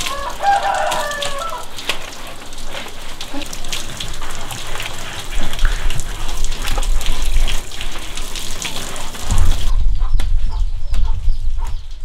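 A rooster crows at the start, over water from a garden hose splashing and dripping onto a wooden table and plank floor, with chickens clucking.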